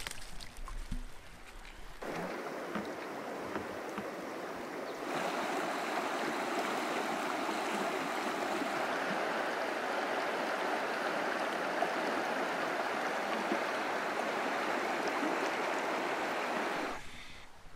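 Creek water rushing steadily. It comes in about two seconds in, grows louder about five seconds in, and drops away near the end.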